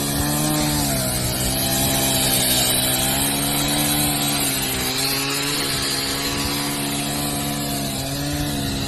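A vehicle engine running steadily under load, its pitch sagging and recovering slightly a few times, typical of a tow vehicle pulling on a strap.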